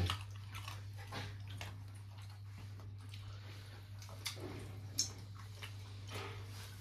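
Eating sounds of someone chewing a meal of chicken curry with roti and rice: scattered short mouth clicks and smacks, the sharpest about five seconds in, over a steady low hum.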